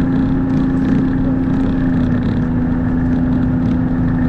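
Engine of an off-road trail vehicle running steadily at a constant pitch while travelling over a snowy trail, heard close up from where the camera is mounted on it.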